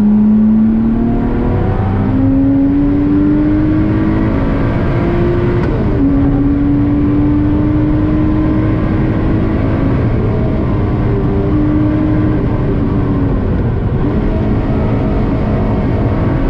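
Lotus Exige 350 Sport's supercharged 3.5-litre V6 heard from inside the cabin, pulling hard under acceleration with its pitch climbing, then dropping sharply about six seconds in as it shifts up, and climbing again. The pitch dips once more near the end before rising, all over steady tyre and road noise.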